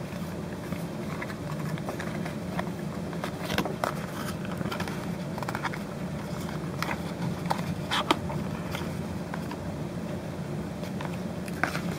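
Hands working an earphone cable free of its tie on a cardboard packaging insert: scattered light clicks and rustles of card and cable, over a steady low hum.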